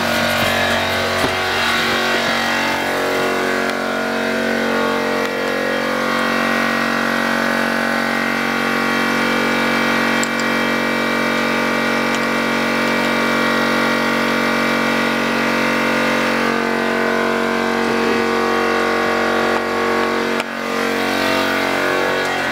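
A loud, steady machine drone made of several held pitches, unchanging throughout.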